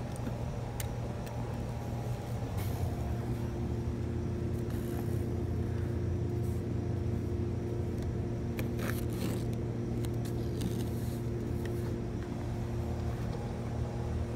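A steady, low engine-like hum that holds one pitch, with a few faint scrapes.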